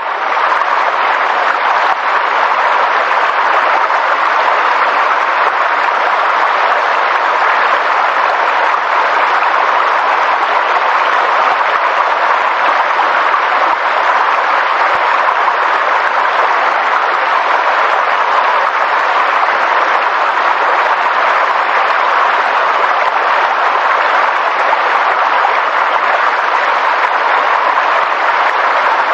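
Steady, unbroken rushing of water, even and loud with no change.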